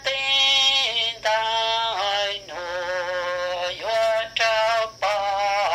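A voice singing a slow melody in long held notes, stepping from pitch to pitch with a wavering vibrato and short breaks between phrases.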